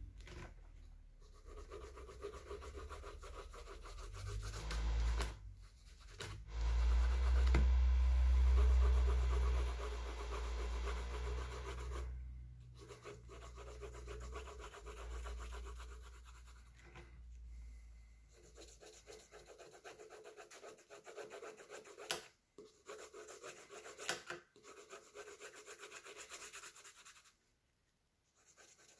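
Blue coloured pencil shading on sketchbook paper: scratchy, rubbing strokes with several brief pauses. A low rumble runs under the first half and is loudest about a third of the way in.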